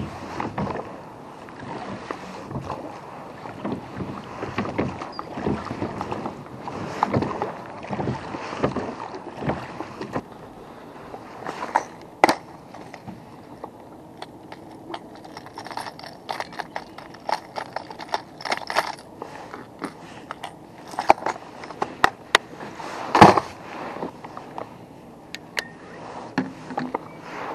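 Handling noise of fishing tackle in a small plastic boat: irregular clicks, knocks and rustling, with a few sharper knocks, the loudest about 23 seconds in.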